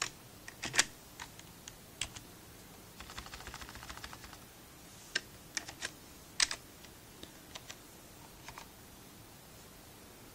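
Keys clicking as a command is typed: scattered single keystrokes, a quick run of about a dozen clicks between three and four seconds in, and the loudest clicks near the start and about six seconds in.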